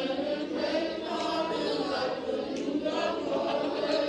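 A school choir of many young voices singing together a cappella, holding overlapping sung notes.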